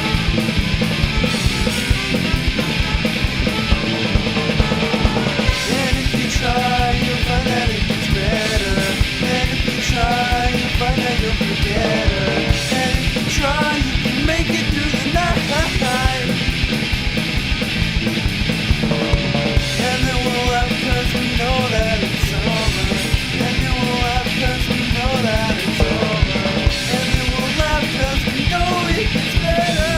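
Ska band playing a loud punk-rock song with a steady beat; a wavering melodic lead line comes in about six seconds in.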